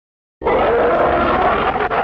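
King Kong's roar from the Showa-era films, a monster roar sound effect that bursts in abruptly about half a second in after silence and holds loud.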